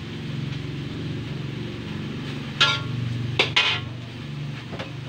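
A cooking utensil clinking sharply against dishes as pork is scraped off a plate into a wok: three clinks with a brief ring a little past halfway, over a steady low hum.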